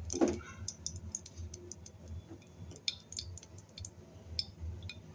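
Desi ghee melting in a small frying pan on a gas burner, with faint, irregular crackles and ticks as it heats.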